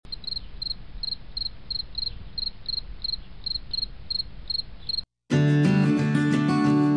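Cricket chirping, a short doubled chirp about three times a second over a low rumble; it cuts off about five seconds in, and after a brief silence strummed acoustic guitar music starts.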